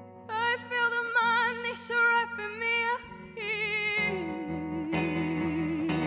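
Live song: a female singer holds long notes with wide vibrato over sustained electric guitar chords, sliding down to a lower wavering note about four seconds in.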